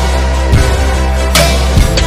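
Background music with a deep, continuous bass and a slow, steady beat.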